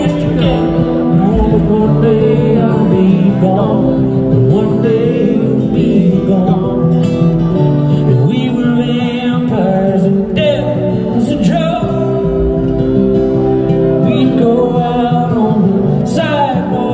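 A live band played through a concert PA: a male lead vocal over strummed acoustic guitar, with electric bass underneath.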